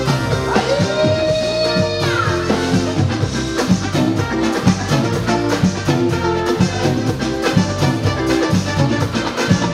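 Live zouk band playing with a steady beat: drum kit, bass guitar and held melody notes over the top.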